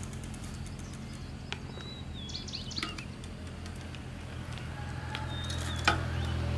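Birds chirping in short rising calls and a brief whistle over a steady low hum, with scattered light clicks and one sharp click near the end.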